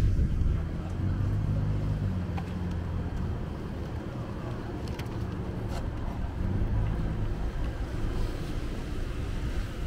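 Steady low engine rumble of a motor vehicle, with general street noise and a couple of faint ticks about five seconds in.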